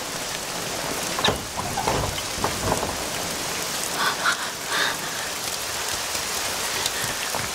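Heavy rain pouring steadily, with a low rumble about two seconds in.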